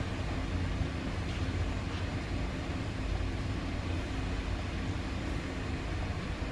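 Steady low hum and noise from an Enshu Railway 2000-series electric train standing still at a station platform, with a faint constant tone from its onboard equipment.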